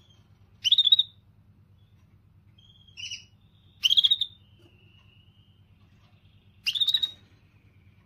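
Canary singing: three loud, short trilled bursts about three seconds apart, with softer thin drawn-out whistled notes between them.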